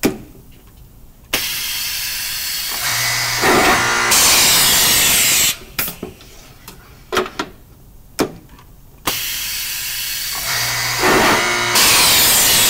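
Grass Ecopress drilling machine boring drawer backs in two cycles: each time it starts, runs steadily for about four seconds, gets louder partway through the run, then stops. Sharp clicks and knocks come between the runs as the panel is handled.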